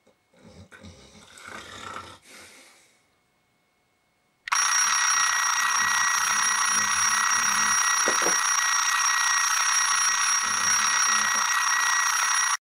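An alarm clock rings loudly and without a break for about eight seconds, starting abruptly a few seconds in and cutting off suddenly near the end. Some faint rustling comes before it.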